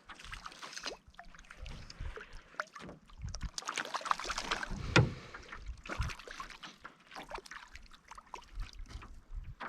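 Water splashing and sloshing in short irregular bursts, with sharp clicks and rustles of handling: a hooked brook trout being played and brought in on a fly rod.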